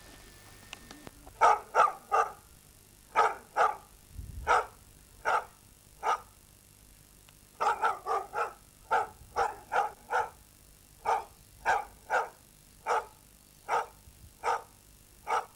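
Rough collie barking repeatedly in short, sharp barks, about one or two a second and often in quick pairs, starting about a second and a half in with a short break around the middle.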